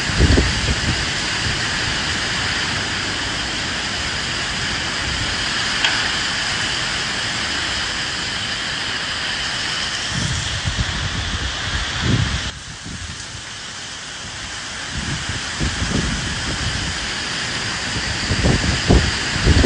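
Steady rain hiss with gusts of wind surging low every few seconds. The overall sound drops abruptly about twelve seconds in, then builds back.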